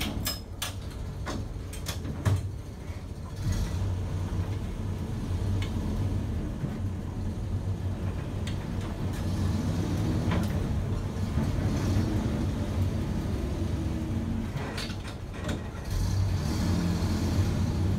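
Engine of a 1962 GMC Civil Defense 4x4 panel truck running as the truck is driven, heard from inside the cab. There are a few clicks and knocks in the first couple of seconds, and the engine note climbs and gets louder near the end as it pulls away.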